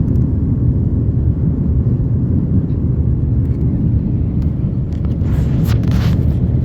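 Steady low rumble of cabin noise inside an Airbus A330-900neo airliner in descent, the engines and airflow heard from a window seat. A brief hiss rises over it about five to six seconds in.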